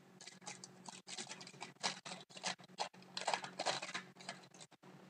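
Trading-card packs and cards being handled: irregular crinkling and rustling of wrappers and cards sliding, in short bursts.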